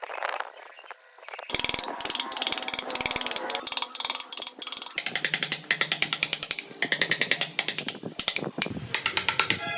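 Rapid ratchet-like mechanical clicking, starting about a second and a half in and going on in runs with short breaks.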